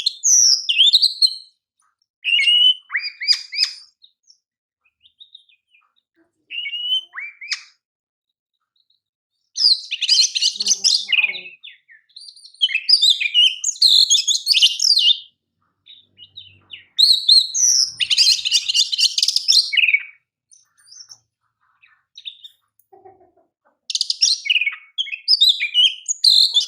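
Oriental magpie-robin (kacer) singing loudly in phrases of sharp, varied whistles and rapid trills, separated by pauses of one or two seconds.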